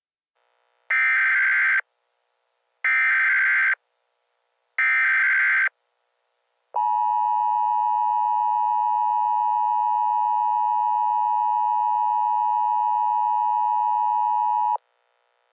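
Emergency Alert System tones: three short bursts of screeching digital data tones, about a second apart, then a steady two-tone attention signal for about eight seconds that stops abruptly.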